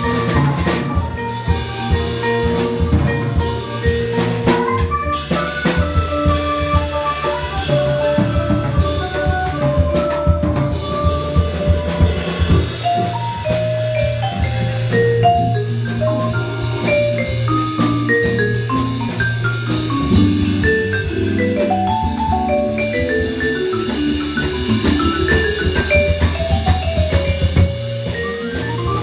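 Live jazz: a vibraphone solo in quick rising and falling runs of mallet notes over a drum kit with cymbals, and an electric keyboard holding low bass notes.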